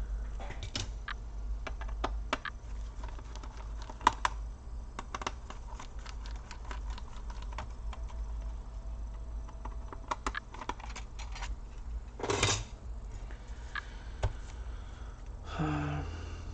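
Irregular light clicks and taps of plastic and metal as a laptop's underside is worked on by hand and with a small screwdriver, its covers and screws coming off. A brief louder rustle comes about twelve seconds in.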